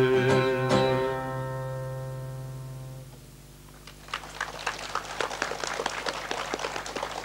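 Final strummed chords on an acoustic guitar ringing out and fading away over about three seconds, ending a song. About four seconds in, applause of many quick hand claps begins.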